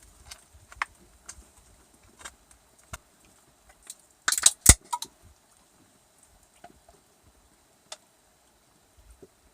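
Scattered light clicks and knocks, with a sharp, loud clatter of a few quick impacts about four and a half seconds in.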